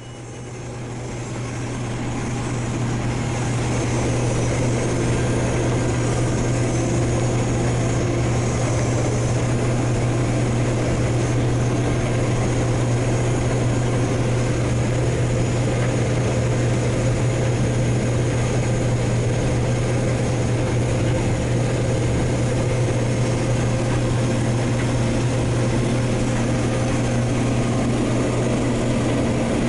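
Diesel engine of heavy harvest machinery running steadily under load, a constant deep drone that builds up over the first few seconds and then holds level.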